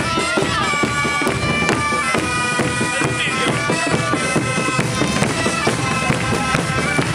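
Mallorcan xeremies (bagpipes) with flabiol (small flutes) playing a lively dance tune over a steady drone, with a drum keeping a regular beat.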